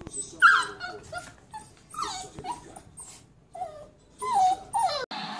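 A puppy whimpering in a string of short, high whines that slide up and down in pitch.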